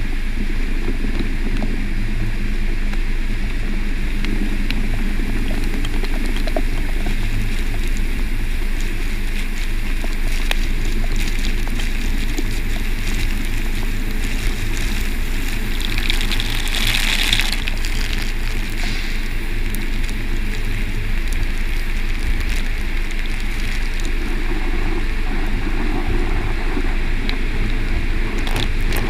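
Automatic car wash running over the car, heard from inside it: rotating brushes and water spray make a steady rushing wash, with a brief louder hiss a little past halfway through.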